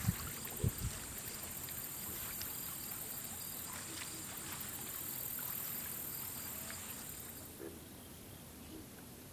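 Quiet outdoor ambience dominated by a steady, high-pitched insect chorus, with a few soft thumps in the first second; the insect sound fades out about three-quarters of the way through.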